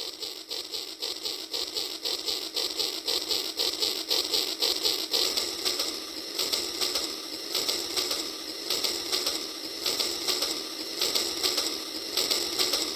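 Rail King toy train's battery-powered locomotive running, its motor gearbox and wheels making a steady, rapid mechanical clicking whir.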